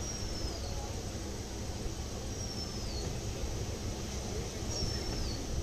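Steady running noise of a moving passenger train heard from an open coach door, with a bird's thin high whistle sliding downward, repeated three times about two and a half seconds apart.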